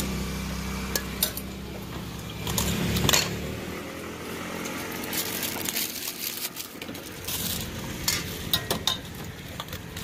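Metal spoon stirring and tossing shrimp in a stainless steel mixing bowl, clinking against the bowl's sides in scattered knocks.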